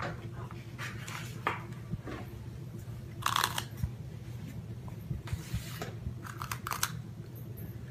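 Faint small clicks and soft rustles of a toddler fingering and eating spaghetti from a plastic high-chair tray, over a steady low room hum, with a few short hissy puffs of breath near the middle.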